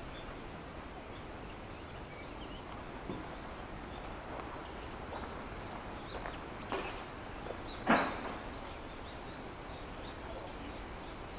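Steady outdoor background hiss with a few sharp knocks, the loudest about eight seconds in, and faint bird chirps.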